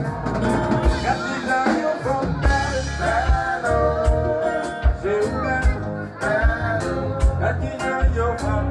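Live kompa band playing with a male lead singer and keyboards over a steady, evenly repeating low beat.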